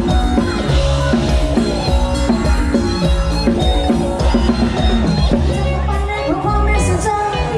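Lam sing band playing an instrumental passage: melody lines over a steady drum-kit beat with heavy bass.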